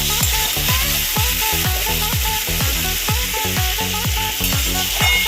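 Potatoes frying in hot mustard oil in a kadai, sizzling steadily as they are stirred, over background music with a steady beat.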